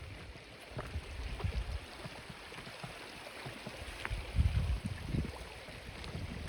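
River stream water flowing close by, with uneven low rumbles that are loudest about four and a half seconds in.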